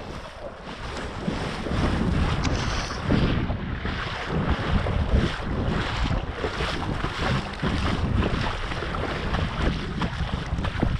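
Wind buffeting the microphone: a steady rushing noise with a low rumble and frequent short gusts.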